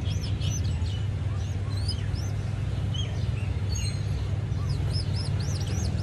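Rescued baby birds peeping: many short, high chirps that rise and fall, a few a second, over a steady low hum.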